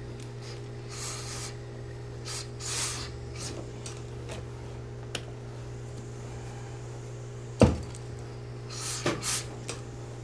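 Dark suit trousers being handled and smoothed on a pressing table: cloth rubbing and a few short rustling hisses, with one sharp knock about seven and a half seconds in, over a steady low hum.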